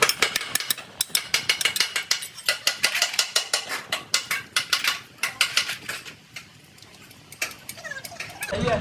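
Rapid metallic clicking and clinking of tools and metal parts during truck gearbox work; the clicks come several a second and thin out and quieten after about five seconds.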